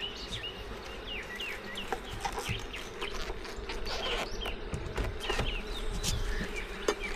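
Honeybees buzzing around an open hive in a steady hum, with birds chirping in many short calls over it and a few sharp clicks.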